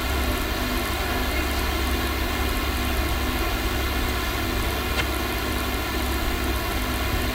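Steady background noise on the recording: an even hiss with a low hum beneath it, and a single short click about five seconds in.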